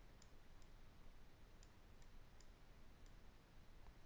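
Near silence with a handful of faint, sharp clicks, made by the input device as handwriting is written on a computer screen.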